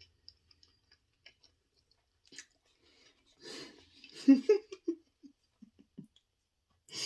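Close-miked chewing and mouth sounds of a person eating, with a few short breathy bursts about halfway through.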